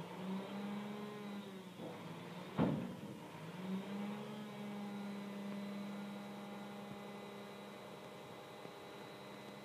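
McNeilus refuse truck's engine running and revving up to drive the hydraulic lift arm as it raises a recycling container, the pitch climbing near the start and again a little after the middle. One loud bang rings out about two and a half seconds in.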